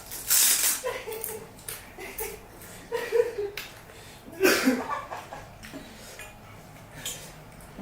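Eating noises from a person eating pani puri close to the microphone: a few loud, sharp, hissing bites or slurps, the loudest about half a second in and another about four and a half seconds in. Short murmurs of voice come in between.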